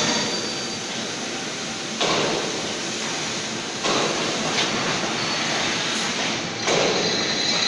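Steady factory-floor machinery noise, with three sudden metallic knocks, about two, four and seven seconds in, as parts of a welding machine's torch fittings are handled.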